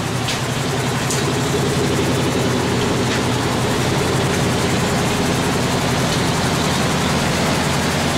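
1937 Cadillac engine idling steadily.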